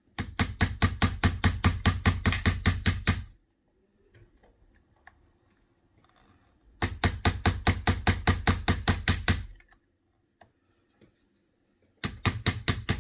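A hammer tapping a spatula held against the bent frame of a Surface Pro 4 tablet to straighten the crease. Three runs of quick, light, even taps, about five a second: the first two last about three seconds each and the last starts near the end.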